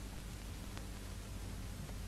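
Steady hiss and low hum of an old soundtrack with no other sound, and a faint click just under a second in.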